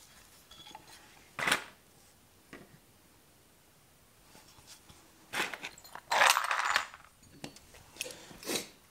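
Handling noise from a bare aluminium Honda AF18 scooter crankcase being turned over and shifted about: a scattering of short scrapes and knocks, the longest and loudest a little after six seconds in.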